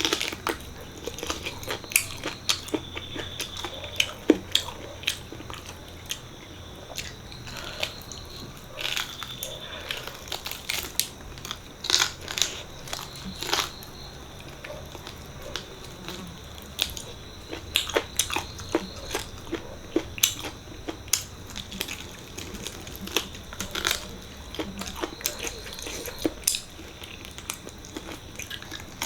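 Close-miked eating sounds of mutton paya curry and rice: irregular wet chewing, lip smacks and mouth clicks throughout, over a faint steady high-pitched whine.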